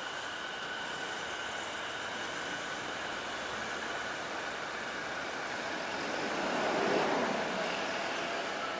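Electric commuter train running on the tracks: a steady rushing noise with a faint high whine, swelling louder about seven seconds in.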